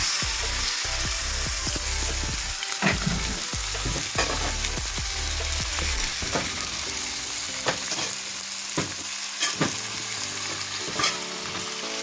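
Chicken breast frying in hot oil with sautéed garlic and onion, sizzling steadily. A utensil knocks and scrapes against the pan several times as the pieces are stirred.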